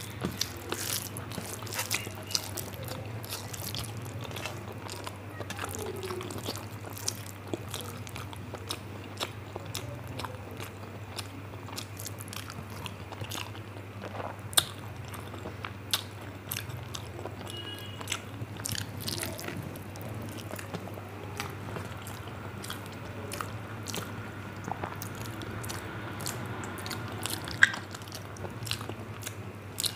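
A person chewing and smacking mouthfuls of rice and curry close to the microphone, with many short wet clicks. A steady low hum runs underneath.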